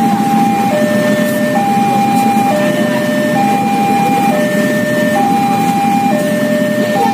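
Railway level-crossing warning alarm, the standard PT KAI crossing tone, sounding as a two-tone signal that swaps between a higher and a lower note about every second. It plays over the steady low rumble of idling motorcycle engines.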